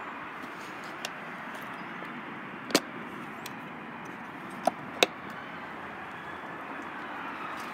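Steady background hiss with a few short, sharp clicks: a faint one about a second in, then louder ones near the middle, the last two close together.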